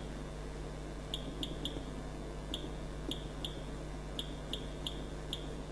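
Short high beeps from the keypad of an ISA CBA 1000 circuit breaker analyzer as its keys are pressed, about ten in irregular groups of two or three, over a low steady hum.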